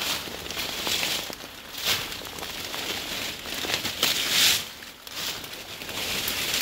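Leafy branches and undergrowth rustling and crackling as a bundle of cut brush is handled and pushed through, in uneven swells. The loudest swell comes about four seconds in.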